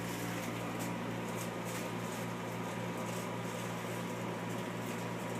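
A steady low mechanical hum from a running machine, with a thin steady whine over it and faint light clicks now and then.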